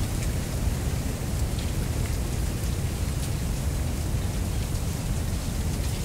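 Mistral wind blowing through a dense stand of giant reed (Canne de Provence, Arundo donax), the dry stalks and leaves rustling steadily with faint scattered ticks, over a low steady rumble of wind.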